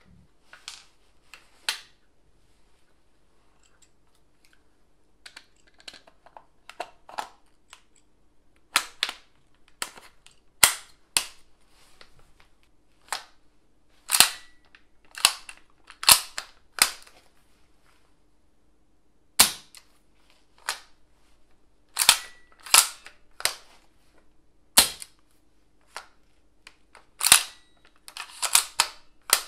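Bolt of an S&T PGM Mini Hecate .338 airsoft sniper rifle being worked by hand: a long series of sharp metallic clacks, irregularly spaced, growing louder and more frequent partway through, with a quick run of clicks near the end.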